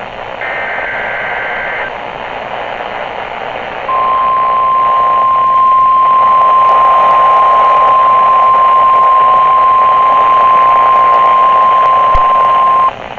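NOAA Weather Radio alert coming through a weather-radio receiver with background static. Near the start a short burst of warbling digital SAME header tones plays. Then the steady 1050 Hz warning alarm tone, which announces an incoming warning, sounds for about nine seconds and cuts off just before the end.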